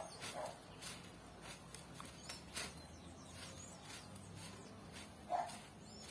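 A dog barking: two short barks at the start and a louder single bark about five seconds in, over a faint background with scattered light clicks.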